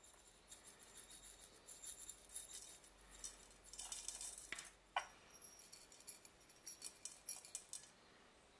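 Coarse salt grains pattering faintly onto raw pork in a rice cooker pot as they are sprinkled from a metal spoon, with one sharp tap about five seconds in. Near the end, whole black peppercorns are scattered on in a run of light ticks.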